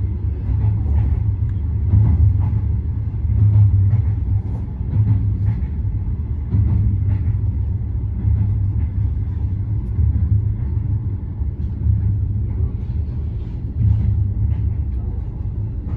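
Steady low rumble of a moving Standard Gauge Railway passenger train, heard from inside the carriage.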